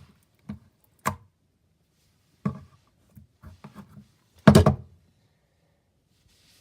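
A series of knocks and bumps from objects being handled and set down on a hard surface, with a few softer taps, and the loudest cluster of thuds about four and a half seconds in.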